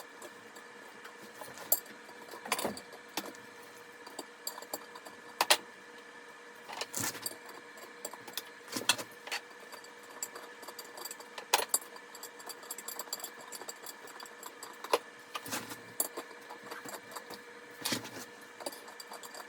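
Channel-lock pliers tightening the hex nuts on a toilet's floor bolts: scattered metallic clicks and scrapes at irregular intervals as the tool grips and turns each nut.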